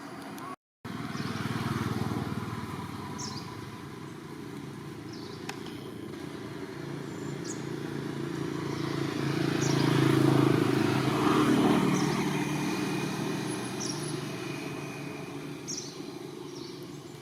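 A motor vehicle's engine passing by, growing louder to a peak about ten seconds in and then fading away. Short high chirps come every couple of seconds over it.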